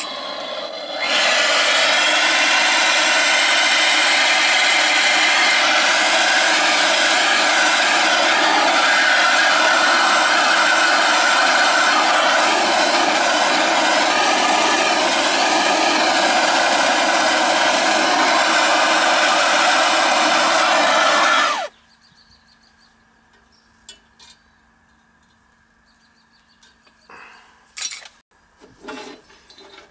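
Handheld soldering torch lit about a second in, its flame running with a loud, steady rushing hiss while heating a sweat-soldered copper joint on a frost-free sillcock. The flame shuts off suddenly about three-quarters of the way through, leaving only faint clicks.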